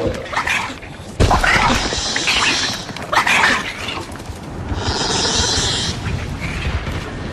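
Edited Troodon dinosaur sound effects: a string of separate growling calls followed by a high, hissing screech.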